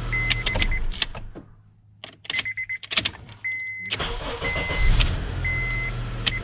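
Honda Accord engine running, then switched off about a second in. Clicks from the key and ignition switch follow, with the dashboard chime beeping in short repeated tones. The engine is started again past the middle, catches at once and runs before dying away near the end. The new ignition switch is starting it reliably.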